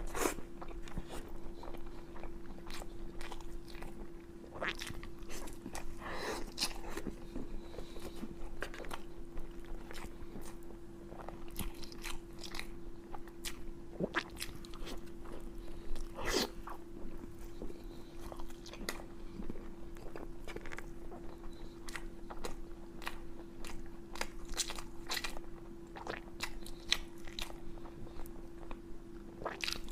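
A person biting and chewing cooked pig's head meat, with many separate crunches; the meat is crunchy. A steady hum runs underneath.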